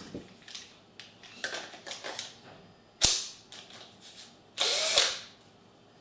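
Cordless drill being handled: one sharp click about three seconds in, then a short burst of about half a second from the drill just before the five-second mark.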